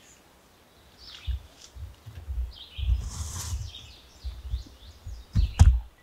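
Small birds chirping in woodland over irregular low thumps and rustling, with one sharp knock near the end, the loudest sound.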